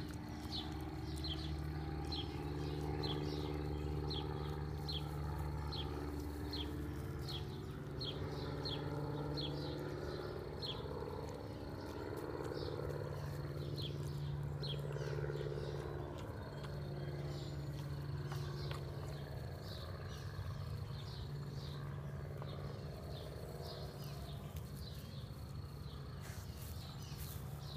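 Outdoor ambience: short high chirps repeating about twice a second, over a low steady hum.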